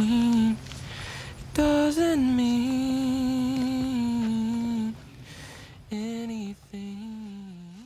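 Closing bars of a background song: a singer hums long held notes, four in all, the last ones quieter and ending with a slight upward bend as the track fades out.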